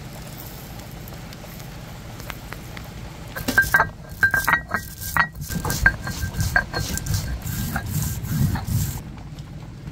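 Stone roller grinding grains on a flat grinding stone. About three and a half seconds in, a run of sharp stone-on-stone knocks and crunches with a ringing note begins, then turns into a rhythmic rolling rumble that stops near the end.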